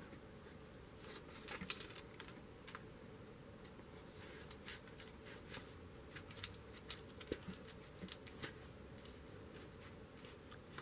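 Faint handling sounds: scattered light metallic clicks of a small steel bolt and its lock and flat washers as it is worked through a drilled hole in a cloth cap by hand.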